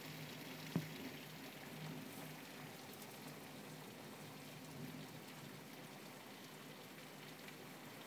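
Light rain falling, faint and steady, with a single sharp tap a little under a second in.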